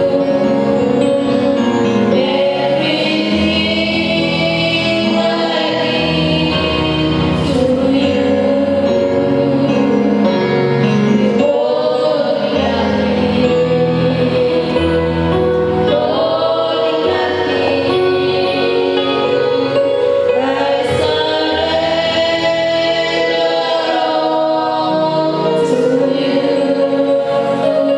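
Choir singing a slow gospel worship song with instrumental accompaniment, the voices holding long, sustained notes.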